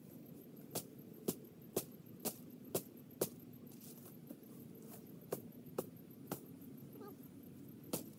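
A hand tool chopping at the base of a small tree: sharp, distant strikes about two a second in runs, with a pause near the middle.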